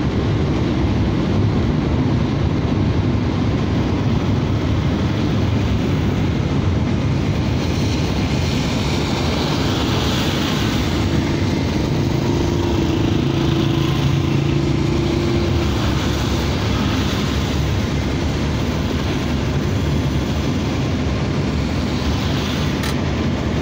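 Steady low rumble of a car driving on a rain-soaked road, heard from inside the cabin, with tyre hiss from the wet surface. A passing minibus adds a humming drone for a few seconds about halfway through, and there is a short click near the end.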